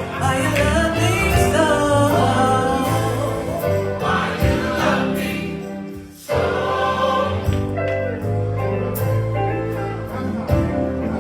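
Choir singing gospel music with band accompaniment and a steady bass line, breaking off briefly about six seconds in before carrying on.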